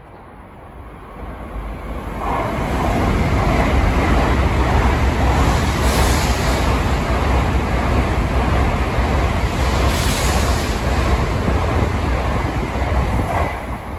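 Tokaido Shinkansen Nozomi bullet train passing through the station at speed without stopping: a steady loud rush and low rumble that builds over the first two seconds, swells twice more (about 6 and 10 seconds in), and falls away near the end as the last car clears.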